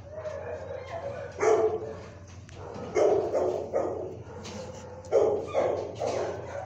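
Dog barking: one bark about a second and a half in, then two quick runs of several barks each, over a steady low hum.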